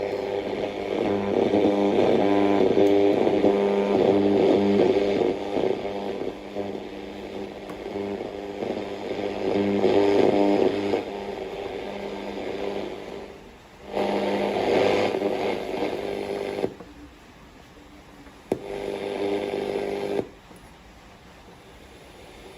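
Old Sony speaker playing back a buzzy sound of several held tones. It cuts out briefly twice and stops abruptly near the end.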